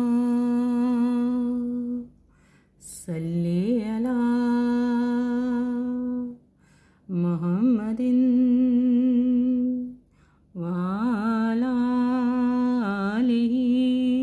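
A single voice humming a slow melody without words, in four long phrases separated by short pauses; each phrase opens with a brief wavering turn and settles on a long held note.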